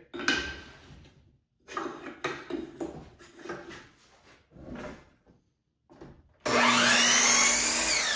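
Wooden trim being handled and positioned, with light knocks and rubbing. About six and a half seconds in, a power miter saw starts suddenly and cuts a 45-degree miter in the trim. Its motor pitch rises as it spins up, then starts to fall as it winds down near the end.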